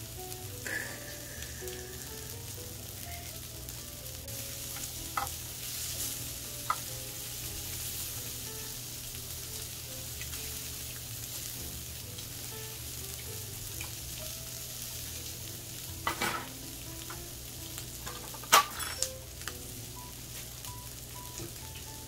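Pork belly sizzling on a grill pan over a portable gas burner: a steady frying hiss. A few sharp clicks are heard over it, the loudest about three quarters of the way through.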